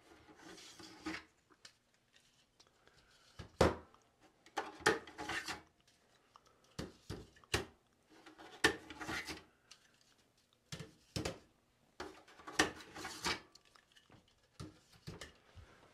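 Hard-drive trays being unlatched and slid out of a Synology DS920+ NAS's drive bays, with drives set down on a desk: irregular clicks, knocks and short scrapes of plastic and metal.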